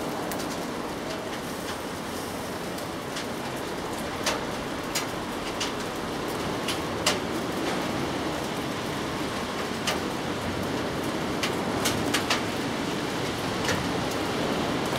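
Steady rain falling, with irregular sharp drops tapping close by. A low rumble builds underneath near the end.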